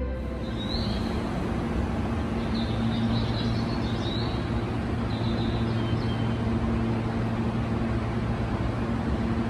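Steady ambient noise of an underground railway station platform, a constant rushing hiss with a low steady hum. Faint high chirps come a few times in the first six seconds.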